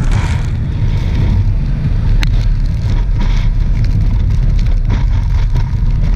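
Steady wind rush on the camera's built-in microphone and wet-road noise from a Honda 700 Deauville V-twin touring motorcycle riding in the rain, its engine running underneath. One sharp tick about two seconds in.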